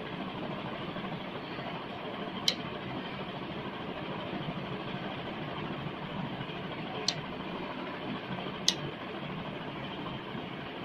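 Blue PCB-mounted relays on a home-automation board clicking as loads are switched on and off from a phone app: three sharp clicks, one about two and a half seconds in and two more a second and a half apart later on, over a steady background noise.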